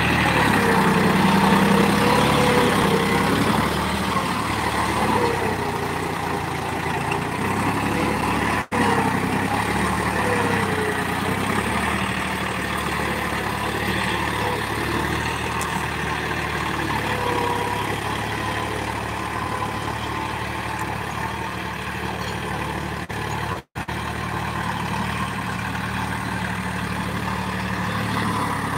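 John Deere tractor's diesel engine running steadily under load as it pulls a cultivator through the soil, its pitch wavering slightly. The sound cuts out briefly twice, about a third of the way in and near the end.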